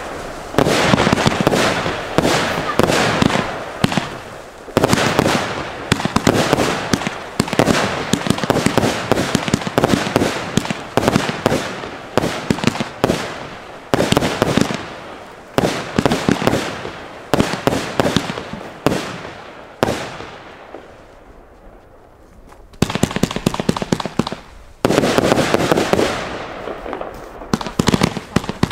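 Aerial fireworks bursting overhead: a dense run of bangs and crackling, each volley starting suddenly and trailing off. About twenty seconds in it dies down to a brief lull, then the bangs start again.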